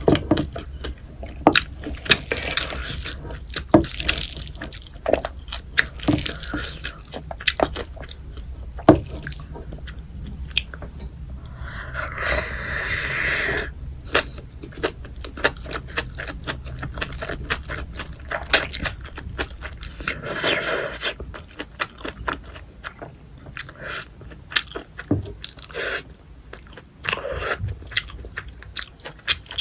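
Close-miked eating of cockle bibimbap: wet chewing with many sharp clicks of a utensil against the bowl. There is a longer noisy stretch about twelve seconds in and a shorter one around twenty seconds.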